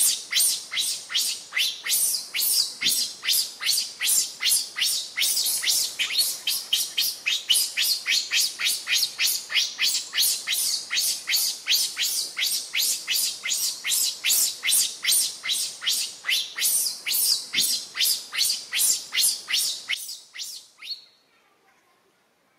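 A rapid, even series of short high-pitched chirps, about three a second, that stops about twenty seconds in.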